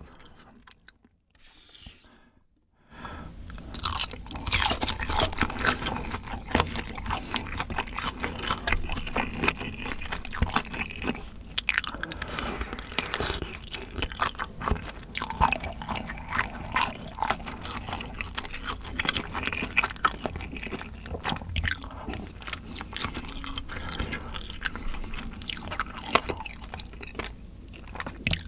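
Close-miked mouth sounds of chewing spicy cream-sauce tteokbokki and pasta noodles: wet, sticky chewing with crackles and crunches. It starts about three seconds in.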